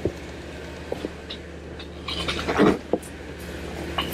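Off-road 4x4's engine running low and steady while it crawls over rocks, with scattered knocks and crunches from tyres and underbody on the rock. The loudest crunch comes about two and a half seconds in.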